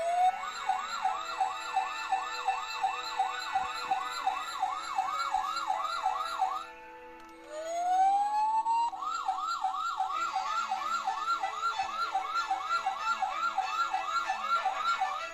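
Electronic toy siren: it winds up with a rising wail, then yelps in quick sweeps about three times a second. About seven seconds in it drops away briefly, winds up again and goes back to the quick yelping.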